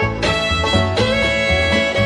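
Background music: a country-style fiddle tune with held notes over a pulsing bass line.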